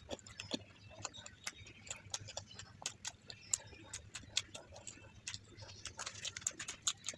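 Close-miked chewing of a mouthful of puri and masala egg curry: irregular wet clicks and smacks from the mouth. About six seconds in the clicks grow busier as a crisp puri is torn off.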